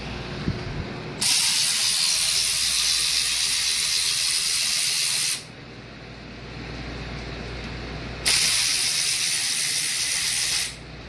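Two bursts of loud, high-pitched hissing from a pressurized jet of gas, the first about four seconds long and the second about two and a half, each starting and stopping sharply.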